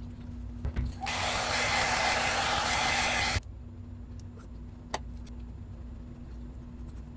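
Hair dryer blowing for about two seconds, then cutting off suddenly, used in place of a heat gun to warm and soften the adhesive behind a car's trunk badge. A few faint clicks follow.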